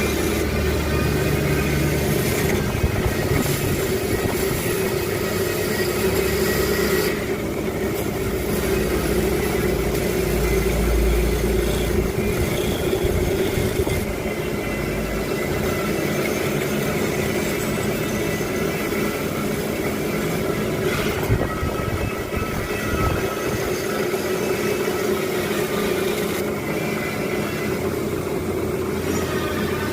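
Bench drill press running steadily while engine valves are cleaned on it, with a steady motor hum under a rough scraping hiss.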